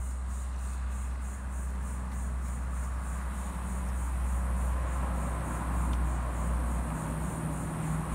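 Dust-collection shop vacuum running steadily with a low hum and a whooshing rush, while the random orbital sander sits idle. Insects chirp with an even pulse in the background.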